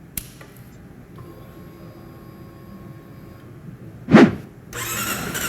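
Mostly quiet with a faint hum and a thin steady tone, then a short whoosh about four seconds in, the loudest sound. A wash of noise cuts in near the end.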